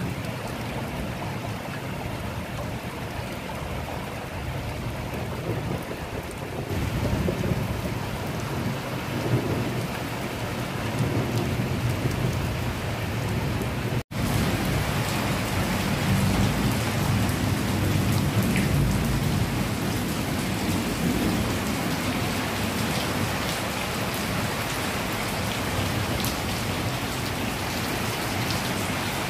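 Heavy rain pouring steadily on corrugated metal roofs and a waterlogged courtyard, with a deep low rumble beneath it. The sound breaks off for an instant about halfway through, at a cut.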